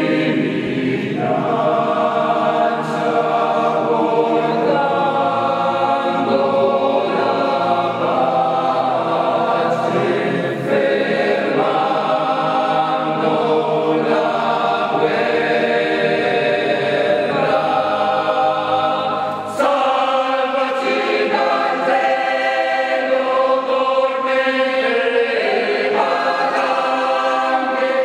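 A choir singing a slow piece in sustained chords, the phrases changing every second or two, with a short break about twenty seconds in.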